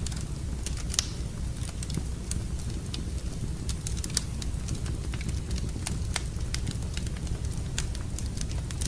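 Wood fire crackling in a fireplace: irregular sharp pops and snaps over a steady low rumble, with the loudest pop about a second in.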